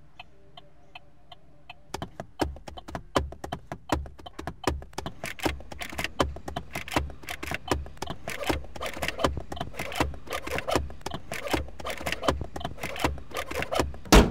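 Holden Colorado's turn-signal indicator ticking evenly, about three ticks a second, joined about two seconds in by hands drumming a rhythm of taps, knocks and thumps on the dashboard, steering wheel and controls, ending with one loud knock.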